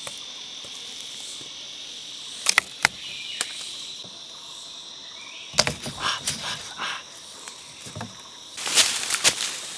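Insects (crickets or cicadas) buzzing in a steady high drone, which fades out about halfway through. Sharp clicks and crackling break in over it, growing dense near the end.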